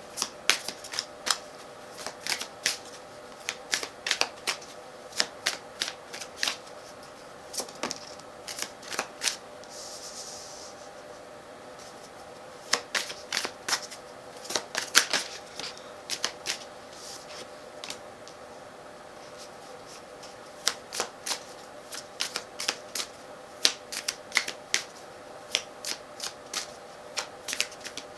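A tarot deck being shuffled by hand: quick, sharp card clicks and snaps come in irregular clusters, with a brief soft swish of sliding cards about ten seconds in.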